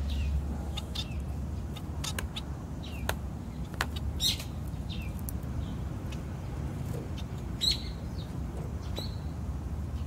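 Society finches (Bengalese finches) giving short, scattered chirping calls, with the loudest about four and eight seconds in. A steady low rumble runs underneath.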